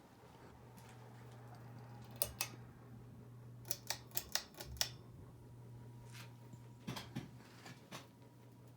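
Hampton Bay Redington IV ceiling fan running with a steady low motor hum. Sharp clicks sound over it: two at about two seconds in, a quick run of about five in the middle, and a few scattered near the end.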